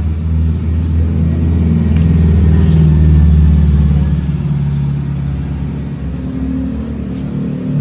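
A motor vehicle's engine running close by: a steady low drone that grows louder over the first three seconds or so, then eases off.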